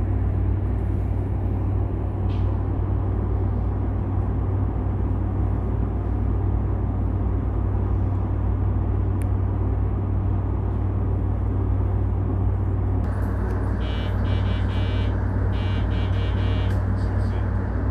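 Steady low hum inside a stopped electric commuter train car, its onboard equipment running while it waits. About fourteen seconds in, a repeated high-pitched ringing comes in for a few seconds.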